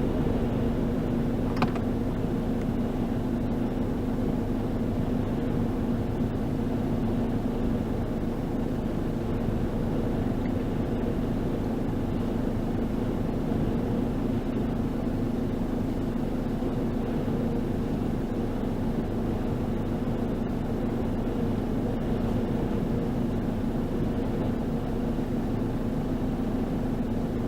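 Gale-force wind blowing steadily against a parked van, with a constant low hum underneath and one brief tick near the start.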